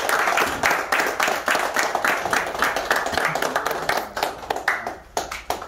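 A small group of people clapping their hands together in fast, dense applause that thins out to a few scattered claps near the end.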